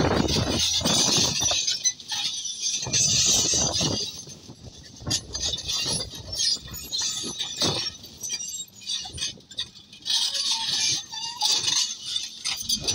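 Irregular metallic clanking and scraping, loud for the first few seconds, choppier and quieter in the middle, and loud again near the end.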